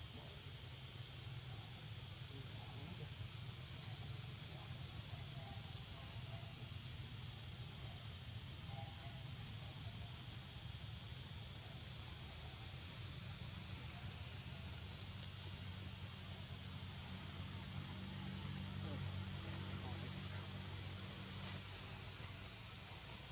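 Steady insect chorus in the forest canopy: an even, high-pitched hiss that never pauses, with a faint low hum underneath.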